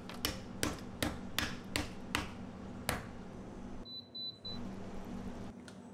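Hard honeycomb sugar candy being broken up with seven sharp knocks, about two or three a second, over the first three seconds. About four seconds in, an induction cooktop's control panel gives a short, high double beep.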